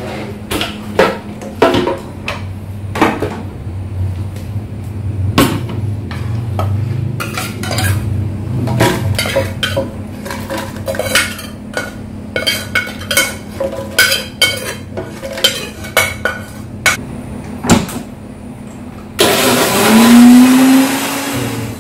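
Metal ladle scraping and clinking repeatedly against a wok as fried dried chillies, garlic and onion are scooped out into a blender jar. About nineteen seconds in, a couple of seconds of rushing water filling a cup, its pitch rising as it fills, then cutting off.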